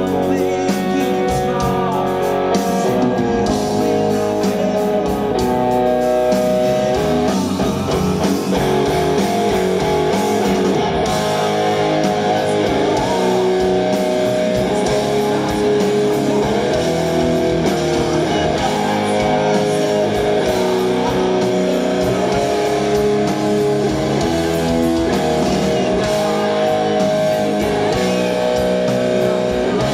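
Live rock band playing an instrumental passage, led by electric guitars over bass and drums.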